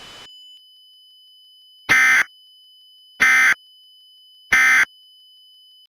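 Emergency Alert System end-of-message signal: three short bursts of SAME digital data, evenly spaced about a second apart, marking the end of the alert.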